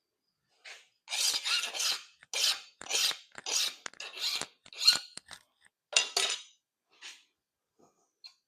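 Hand file being stroked back and forth across round steel stock clamped in a blacksmith's foot vise: about ten rasping strokes, a little under two a second, with one lighter stroke after a short pause near the end.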